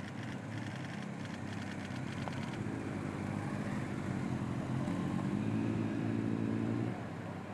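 Vehicle engines running as a motorcade of cars and escort motorcycles pulls away, the engine hum growing louder about two and a half seconds in and cutting off abruptly near the end.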